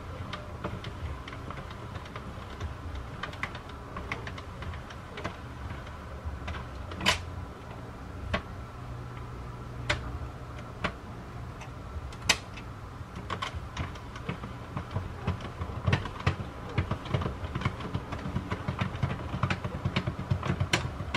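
Plastic circular knitting machine being hand-cranked round, its needles clicking and clacking unevenly over a low steady rumble, the clicks coming thicker in the second half.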